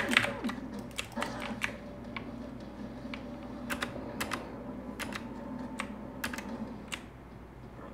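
Irregular sharp clicks of a computer keyboard and a K World Gaming Orion M1 gaming mouse being worked fast during play, some in quick pairs, with a quieter stretch around two to three seconds in.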